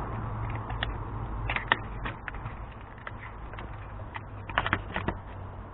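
Irregular light clicks and taps of hand tools at work on a car, bunched about a second and a half in and again near the end, over a low steady hum.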